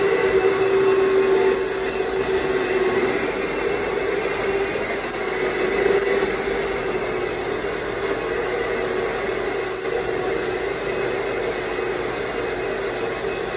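A motor-driven detailing machine running steadily: a constant rushing hiss with a steady whine, a little louder for the first second or so.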